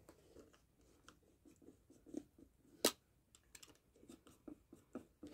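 Knife cutting through the rubber heel of a shoe sole: faint, scattered short cutting clicks and crackles, with one sharper click about three seconds in.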